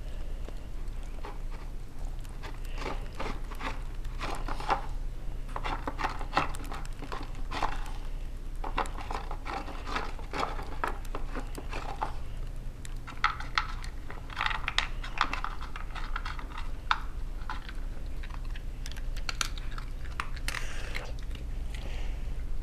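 Small dog licking peanut butter from a plastic bowl: rapid clicky licking and smacking in bouts of a few seconds with short pauses, over a steady low hum.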